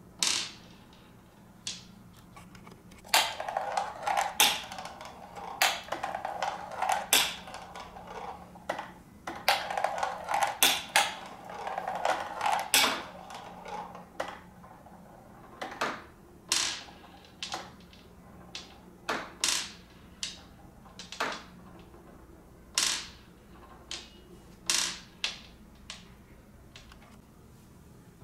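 Marbles dropping into a water-filled glass tank and knocking down plastic ramps onto the glass bottom: a run of sharp clicks and plops, crowded together with a splashy wash for the first half, then single clicks about once a second.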